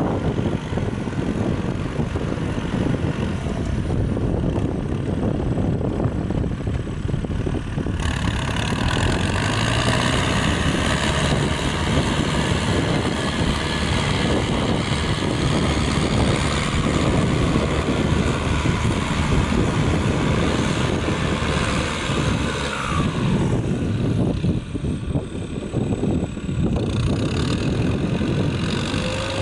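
Kubota M6040 tractor's diesel engine running steadily under load as it drags a disc puddler through a flooded, muddy paddy. It gets brighter and louder about eight seconds in.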